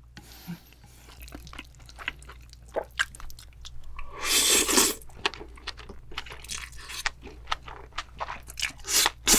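Close-miked eating of sauced fried chicken and black bean noodles: chewing with many small wet clicks and crunches. There is a loud slurp lasting about a second around four seconds in, and another starts near the end.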